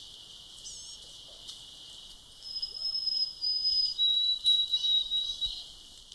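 White-throated sparrow singing: a long, pure, high whistle, then a second, slightly lower whistled note. A faint short high call comes about a second in.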